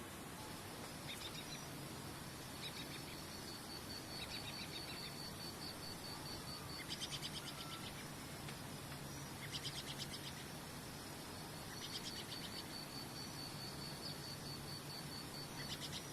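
Nature soundscape: high, rapidly pulsed trilling calls that come and go, with a few short bursts of fast buzzy chirps, over a soft steady hiss.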